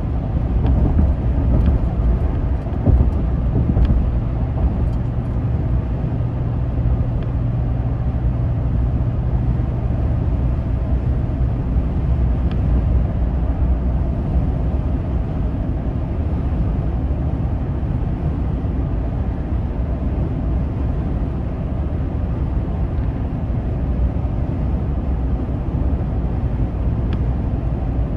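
Steady road and engine noise heard from inside a vehicle's cabin at freeway speed: a low rumble of tyres on pavement, with a faint low hum during the first dozen seconds.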